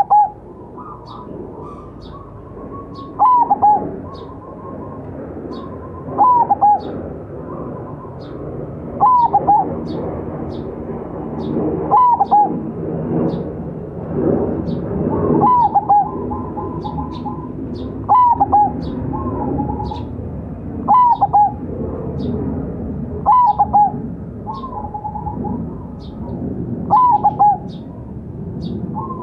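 Zebra dove (perkutut) of the local Majapahit type singing its cooing song: a short phrase repeated about every three seconds, over a steady low murmur and faint high chirps.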